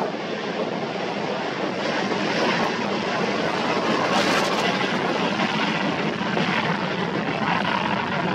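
Jet engines of a Royal Australian Air Force KC-30A tanker (Airbus A330 MRTT) running as it rolls along the runway: a loud, steady rushing rumble.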